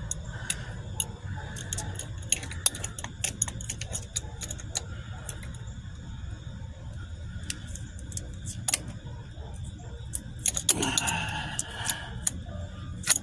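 Irregular metallic clicks and clinks of a wrench working a forklift battery cable clamp loose from its terminal, over a steady low background hum.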